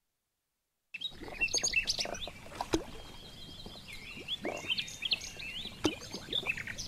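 Birds chirping and twittering in a lakeside ambience, starting about a second in, with a few small water plops around a fishing float.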